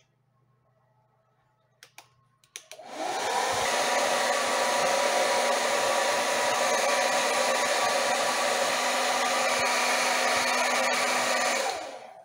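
A small electric motor switched on about three seconds in, running at a steady pitch with a loud even rush, then switched off and winding down near the end.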